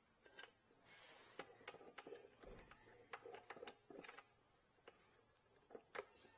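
Faint, scattered small clicks and taps as a drill bit is fitted into a drill press chuck.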